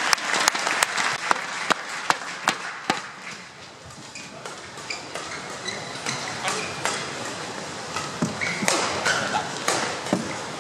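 Badminton rackets striking a shuttlecock in a fast men's doubles rally. The sharp hits come about every 0.4 s for the first three seconds, then more widely spaced, over the steady hum of an arena crowd.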